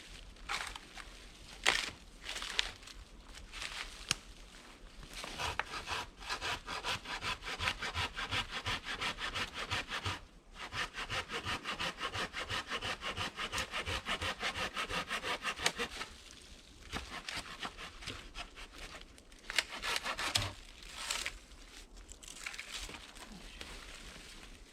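Hand saw cutting through wood with rapid back-and-forth strokes, in two long runs with a short break about ten seconds in. Scattered knocks and rustles come before and after the sawing.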